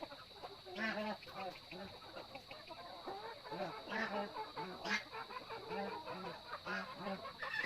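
Farm poultry, chickens and ducks, calling over one another in many short, overlapping calls.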